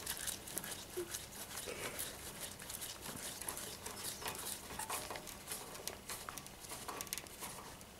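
Light, irregular clicks and taps of a small hand screwdriver turning a screw into a metal part in a car's engine bay.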